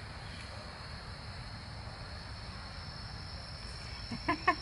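Insects trilling in a steady, high, unbroken drone, cricket-like. About four seconds in, a brief cluster of sharper sounds is the loudest moment.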